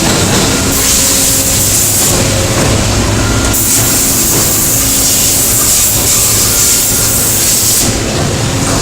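Steady machinery noise, a loud hiss over a low hum, with the high hiss dropping away and coming back a few times; no distinct punching strokes.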